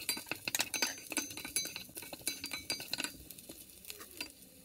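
Wooden spoon stirring sautéing garlic and ginger in a pot, making rapid clicks and knocks against the pot for about three seconds, then only a few, with a faint sizzle underneath.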